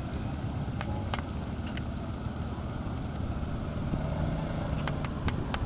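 A steady engine drone with a low rumble, with a few faint clicks over it.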